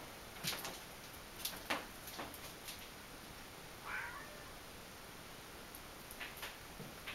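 Several light taps and knocks, with one short squeaky call, rising then falling in pitch, about four seconds in.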